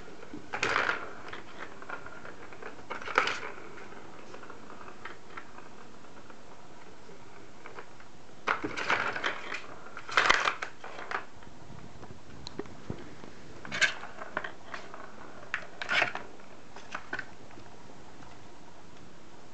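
A plastic ball-track cat toy clattering and rattling as a kitten bats at the ball inside its tube, in irregular bursts a few seconds apart, busiest around the middle.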